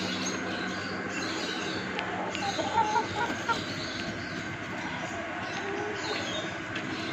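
Domestic chickens clucking and calling in a flock, with a few short calls close together about three seconds in, over a steady background hum.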